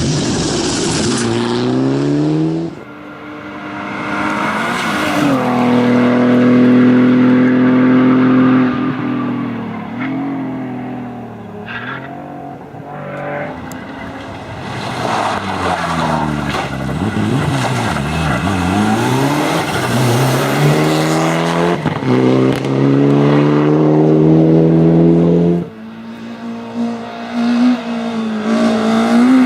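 Rally cars at full throttle on a special stage: engines revving hard, the pitch climbing through each gear and dropping sharply at the shifts, with the pitch falling as cars pass close by. There is tyre noise on the road.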